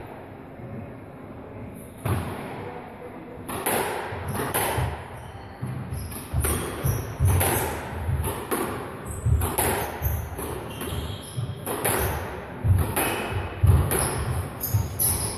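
Squash rally: the ball is struck by rackets and smacks against the court walls in quick irregular hits, with players' footfalls thudding on the wooden floor, starting about two seconds in. The hall adds some echo.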